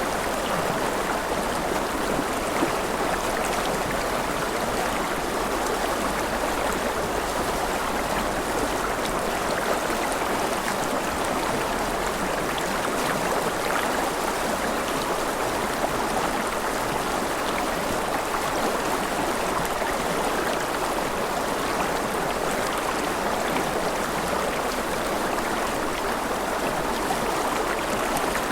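Mountain river rushing over rapids: a steady, even sound of flowing water with no breaks.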